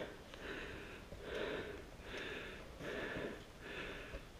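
Footsteps crunching through snow at a steady walking pace, about one step every three-quarters of a second.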